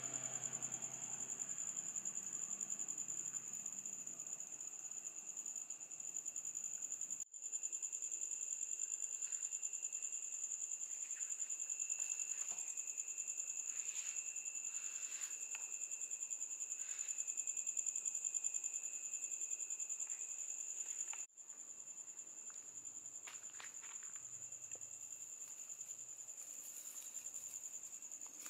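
Crickets chirring in a steady, high-pitched chorus, with a second, lower insect trill heard through the middle stretch. A few faint soft rustles.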